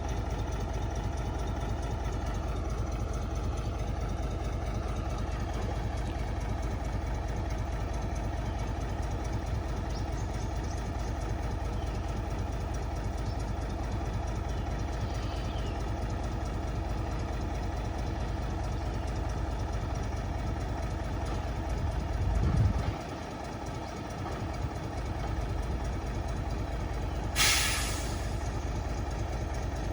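Heavy earthmoving machine's diesel engine running steadily with a deep rumble. About two-thirds of the way through it surges briefly, then the low rumble drops away for about two seconds, and near the end there is a short, sharp hiss.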